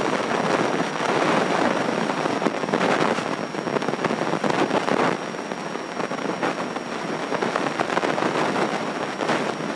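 Steady cabin noise of a Grumman light airplane in cruise: engine and rushing airflow, with faint crackling throughout.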